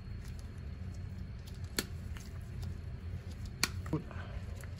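Side cutters cutting off an old, cracked rubber CV axle boot, giving a few short, sharp snips over a low steady hum.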